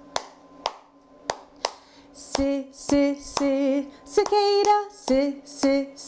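Hand claps keeping the 3-2 clave rhythm, sharp single claps spaced about half a second to a second apart; about two seconds in a woman starts singing held notes over the clapping.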